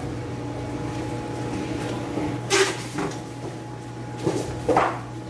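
A few sudden knocks and clatters of handling, about two and a half seconds in and again near the end, over a steady hum from aquarium air pumps and filters.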